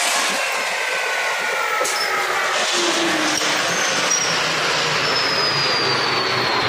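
Drill press spinning a cutter against a steel pin held by hand, shaving off metal: a steady metal-cutting rasp with a thin high whine that slowly falls in pitch.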